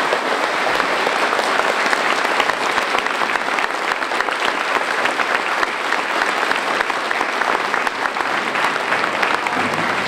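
Audience applauding steadily: many people clapping at the close of a speech.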